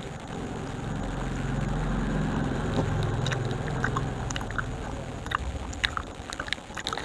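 Close-up chewing and biting of candy, with scattered small crunches and clicks. A low hum swells about a second in and fades after about five seconds.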